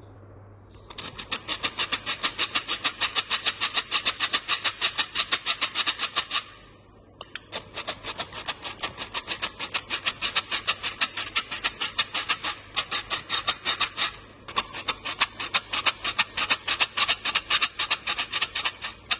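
Rapid, even clicking strokes, about six a second, in three runs with short breaks about six and fourteen seconds in.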